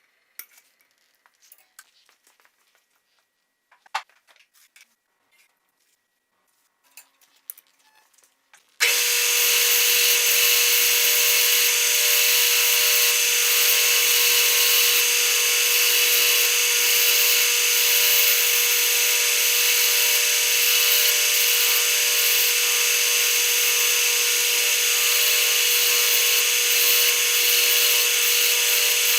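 A few light clicks and taps, then a power tool starts suddenly about nine seconds in and runs steadily at an even pitch with a high whine.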